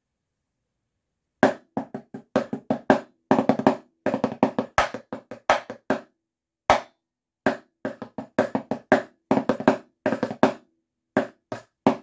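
Drumsticks on a snare practice pad playing a drumline snare part: quick runs of accented strokes and rolls, broken by short gaps. It starts about a second and a half in.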